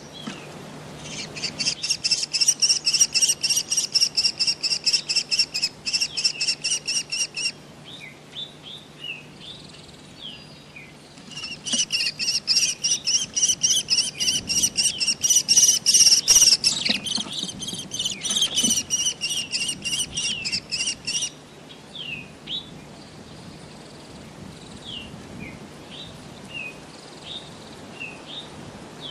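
American kestrel calling a rapid, shrill klee-klee-klee series of about five high notes a second, in two long runs, followed by scattered softer, shorter notes.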